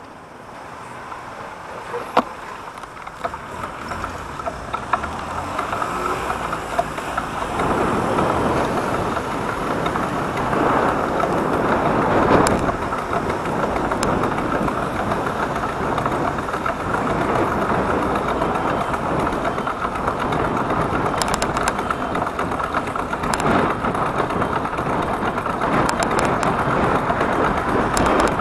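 Steady rushing road and traffic noise that swells over the first several seconds and then holds, with a few faint clicks.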